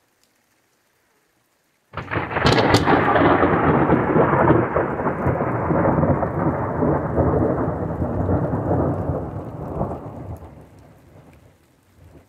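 A close thunderclap: a sudden sharp crackling crack about two seconds in, then a loud rolling rumble that slowly dies away over about eight seconds. Faint rain is left near the end.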